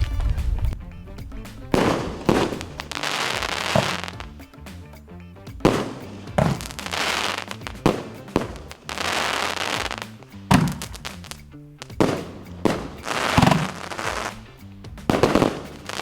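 Firework mortar shots fired from a mortar barrel inside a glass aquarium, going off about every two seconds, each a sharp bang followed by about a second of hissing crackle.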